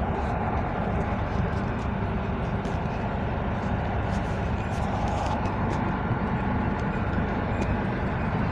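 Interior running noise of a moving EN57AL electric multiple unit: a steady rumble of the train under way.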